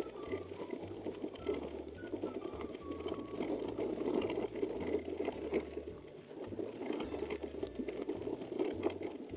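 Mountain bike tyres crunching over a loose gravel forest track, with the bike rattling steadily over the stones.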